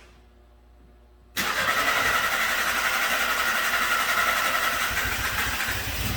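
Starter motor cranking a Volkswagen direct-injection four-cylinder petrol engine. It starts suddenly about a second in and keeps cranking steadily for several seconds without the engine catching, with the high-pressure fuel side just opened and still building pressure.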